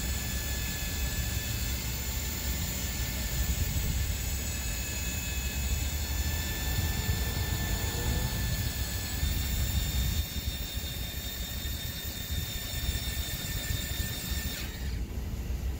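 Electric awning motor on an Airstream travel trailer running steadily as the awning rolls out, with a steady whine that stops suddenly near the end as the awning reaches full extension. A steady low rumble runs underneath.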